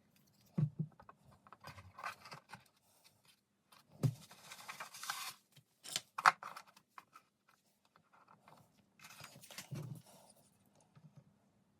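Wooden model-kit parts and plastic squares being handled and set down on a workbench: scattered light knocks and clicks with scraping and rustling between them, the sharpest click about six seconds in.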